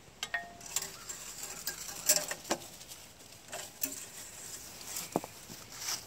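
Scattered light metallic clicks and scrapes as the engine oil dipstick on a Case 580D backhoe is worked out of its tube and handled, about seven small knocks spread irregularly, with a brief squeak near the start.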